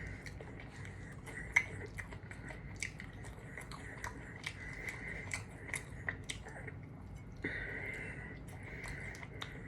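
A person chewing and biting KFC food close to the microphone: wet mouth sounds broken by many short, sharp crunchy clicks.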